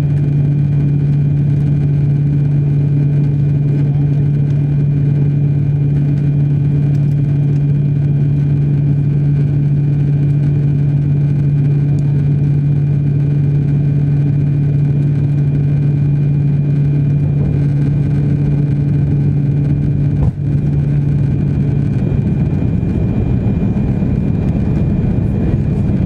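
Cabin noise in an Airbus A340-600 on approach: a steady loud rush of air and engine drone. A steady low hum runs through it and stops about 22 seconds in, just after a brief click.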